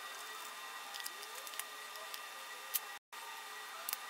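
Faint clicks and light scraping of hands fitting wires to the contact block of an e-stop push-button switch, over a steady low hiss. The sound drops out completely for a moment about three seconds in.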